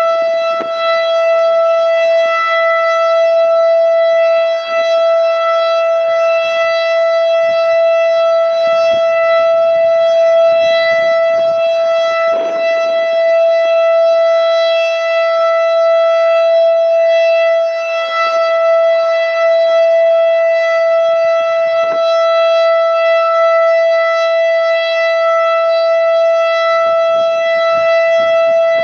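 Federal Signal STH-10A outdoor warning siren sounding a loud, steady tone at full speed, its pitch held level with no rise or fall.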